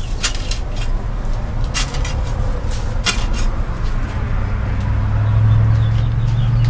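A few sharp clicks and scrapes in the first half, then a low steady motor hum that swells over the last couple of seconds.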